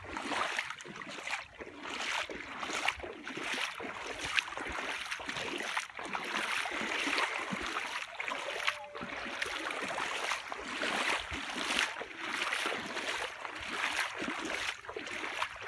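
Small sea waves washing and splashing at the water's edge, an irregular sloshing that swells and fades every second or so.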